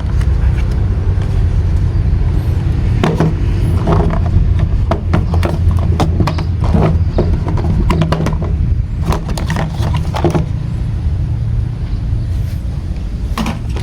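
Plastic toy cars and trucks being handled, with scattered light clicks and knocks over a steady low rumble.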